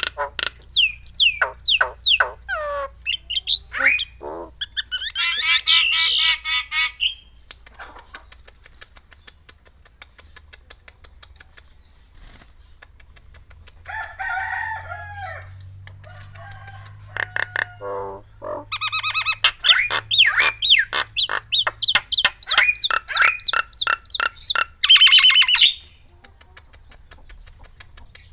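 Nias hill myna calling loudly: a run of whistles that fall in pitch, a wavering call, then a long stretch of faint, rapid clicking, and in the last third a loud burst of quickly repeated falling calls ending in one longer held call.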